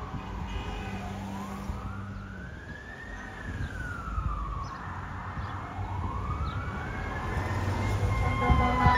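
Fire apparatus siren on a slow wail, its pitch rising and falling about every four to five seconds and growing louder as it approaches, over the low running of vehicle engines.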